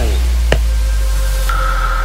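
Electronic background music: a deep sustained bass note with one drum hit about half a second in, and a high held tone coming in near the end.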